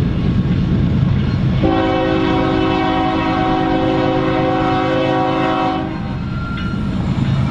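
BNSF diesel freight locomotive's horn sounding one long blast of about four seconds, starting a couple of seconds in, as part of its warning for a grade crossing. A low rumble runs underneath.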